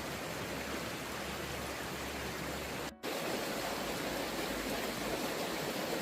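Stream water rushing steadily down toward a small drop, flowing freely with the debris blockage cleared. The sound cuts out for an instant about halfway, then resumes.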